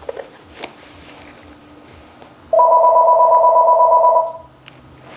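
Telephone ringing: one electronic ring of two pitches sounding together with a fast warble, about a second and a half long, starting about two and a half seconds in. It is one of a series of rings a few seconds apart.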